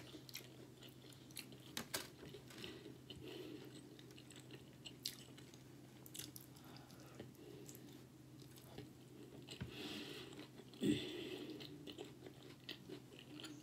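A person chewing a mouthful of homemade pizza on a flour-tortilla crust, close to the microphone: soft, scattered crunches and wet mouth clicks.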